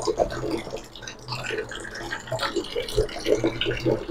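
Water running from the outlet of a tap-mounted instant electric water heater, splashing irregularly.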